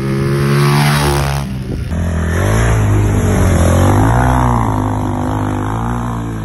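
Off-road dirt bike engines. The first runs at a steady pitch. After a cut about two seconds in, another revs up and down as its rear wheel spins in sand.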